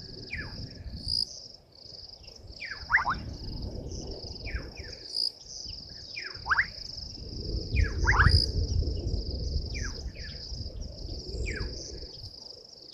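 Crickets trilling steadily and high, with a bird giving short descending whistles every second or two. A low rumble comes and goes beneath, swelling about eight seconds in.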